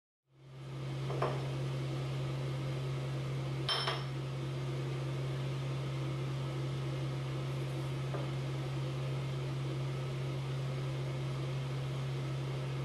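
A steady low machine hum fades in and holds throughout. Over it come a light knock about a second in and a short ringing clink near four seconds, such as a ceramic mixing bowl being handled while flour is mixed by hand.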